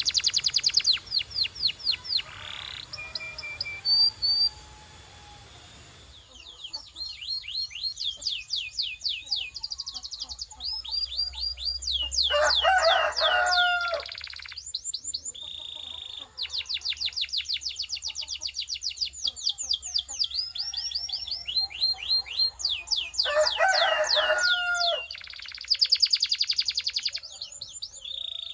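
Canary singing a long rolling song: rapid runs of repeated high, falling notes, about ten a second, broken by brief pauses, with two lower, harsher phrases about halfway through and near the end.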